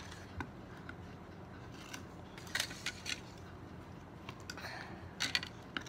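Slime being stirred in a container: a few short scrapes and clicks of the stirring utensil against the sides, as glue and borax solution are worked together.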